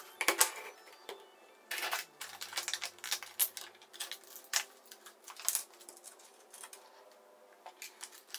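Clear plastic packaging bag being handled and crinkled, with irregular crackling bursts and a few sharp clicks.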